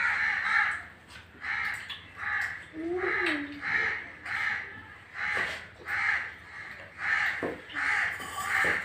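A bird calling over and over in short, harsh calls, about one and a half calls a second.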